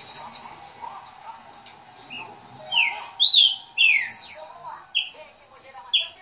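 Caged pixarro, a Brazilian saltator, singing a run of loud, clear whistled notes, each slurring steeply downward, one every half second to a second from about two and a half seconds in, with a few faint chirps before.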